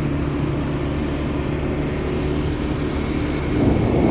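Moped engine running steadily with road and wind noise while riding.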